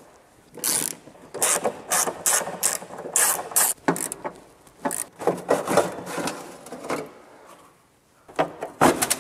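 Hand ratchet wrench clicking in short, repeated runs as it undoes the bolts of exhaust heat shields.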